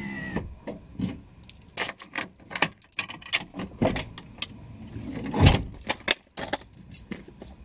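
Sharp clicks and jangling rattles throughout, with a louder, deeper thump about five and a half seconds in as a Toyota 4Runner's door is unlatched from its inside handle and swung open.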